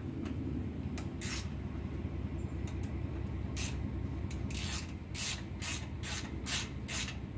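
Hand ratchet clicking in short, quick strokes, about two or three a second in the second half, as bolts are wound into the brake rotor's threaded jacking holes to push the stuck rear rotor off the hub. A steady low hum runs underneath.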